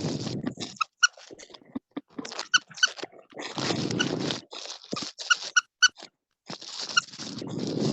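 A small animal squeaking in short, high chirps, a dozen or so, scattered between bursts of rustling, crunching noise.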